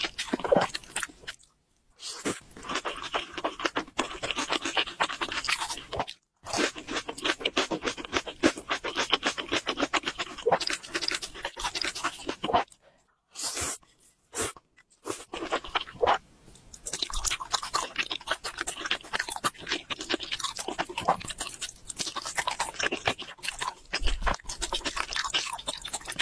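Close-miked eating sounds: spicy ramen noodles being slurped and chewed, with rapid wet, crunchy mouth noises, broken a few times by brief silences between cuts.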